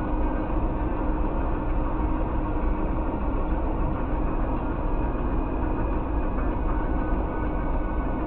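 A car's engine running steadily, heard from inside the cabin through a dashcam microphone, as a constant low rumble with a steady hum.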